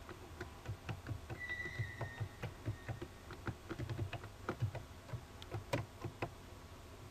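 Computer keyboard being typed on: an uneven run of key clicks, several a second.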